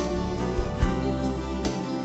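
Instrumental playback (karaoke backing) track with a low beat about every 0.8 seconds under sustained tones, and no singing.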